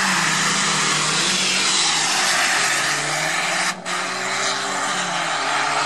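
Two cars launching from a standing start and accelerating hard, their engines held at high revs and rising and falling in pitch through the gears, over a loud, steady rush of noise. There is a brief sharp drop in level a little under four seconds in.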